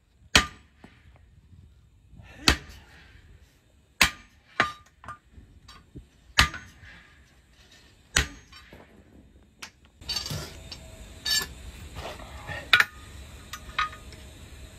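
Hammer blows during heavy truck tyre work: about ten sharp single strikes, one every second or two, some leaving a short ring.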